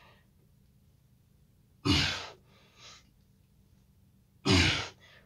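A man's sharp, forceful breaths out during push-ups, one with each repetition, about two and a half seconds apart. A quieter breath in follows.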